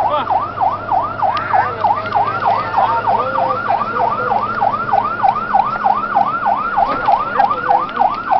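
Fire engine's electronic siren in a fast yelp, a rapid train of wails several times a second, with the truck's engine droning steadily underneath.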